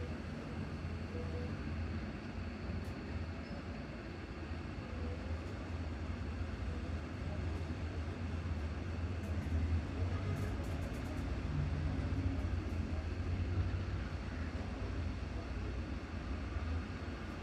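Steady deep rumble of background noise, with a few faint light ticks about ten seconds in.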